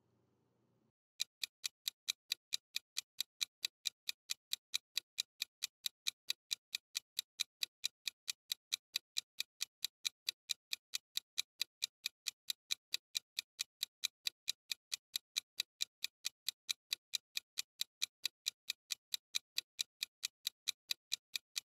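Countdown-timer clock-ticking sound effect: an even, mechanical ticking, several ticks a second, starting about a second in and running steadily, marking the time left to answer.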